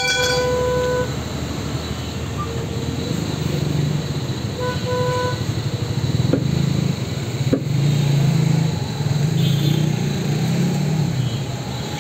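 Road traffic running with a vehicle horn tooting briefly at the start and again about five seconds in. Two faint knocks come around six and seven and a half seconds in.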